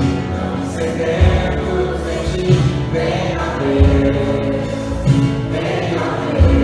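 Choral music: voices singing held notes over a deep bass pulse.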